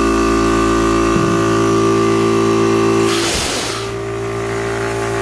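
Yong Heng water-cooled 300-bar electric PCP air compressor running steadily with a hum and a stack of steady tones while it fills an air rifle cylinder towards 250 bar. About three seconds in, a short hiss of air comes as a valve on the compressor is opened.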